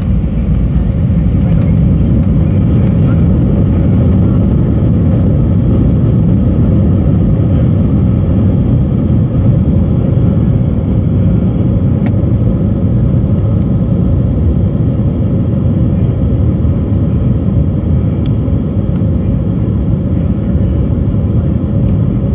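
Cabin noise of an Airbus A319 on its takeoff roll, heard from a window seat over the wing: the jet engines at takeoff thrust together with the deep rumble of the wheels on the runway. Loud and steady throughout.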